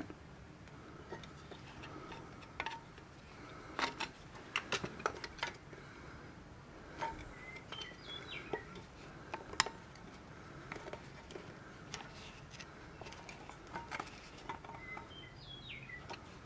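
Small metal clicks and taps of a screwdriver working the retaining clip on the parking brake lever pin of a rear drum brake shoe, prying it open. The clicks are faint and irregular, scattered throughout.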